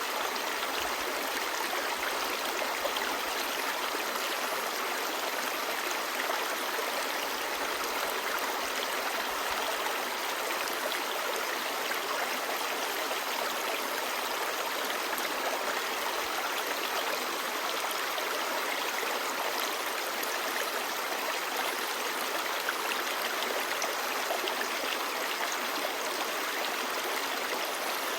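Clear stream babbling: a steady, unbroken rush of flowing water.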